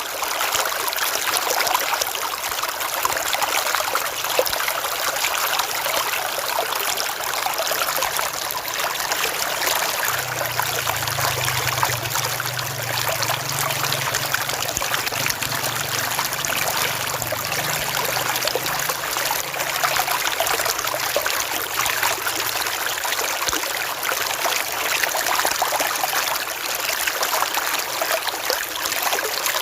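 River water flowing steadily, a continuous trickling rush. A faint low hum rises under it for a stretch in the middle.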